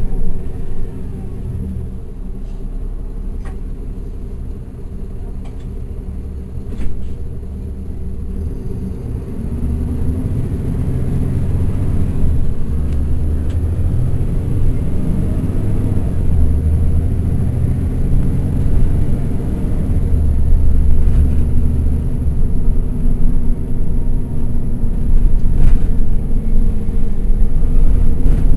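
The Caterpillar C13 ACERT diesel of a 2009 NABI 416.15 transit bus, heard from the rear of the cabin. It runs low and quieter for the first several seconds, then grows steadily louder from about ten seconds in as the bus accelerates. A few light knocks or rattles come through on top.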